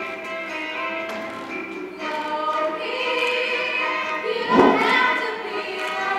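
A group of young voices singing a show tune together over musical accompaniment, holding long notes. About four and a half seconds in comes a sudden loud hit, the loudest moment.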